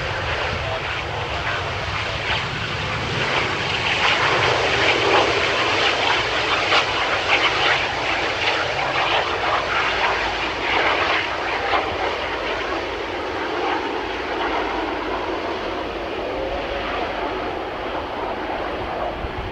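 Jet engines of a wide-body twin-jet airliner running at high power as it rolls down the runway. The noise swells with a crackle a few seconds in, then slowly fades as the aircraft moves away.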